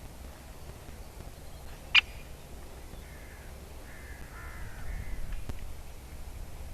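Great spotted woodpecker giving one sharp, very short call about two seconds in, with fainter bird calls a little later.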